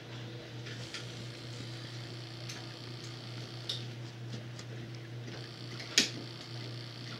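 Camera handling noise: scattered light clicks and ticks over a steady low hum, with one sharp knock about six seconds in as the camera is moved.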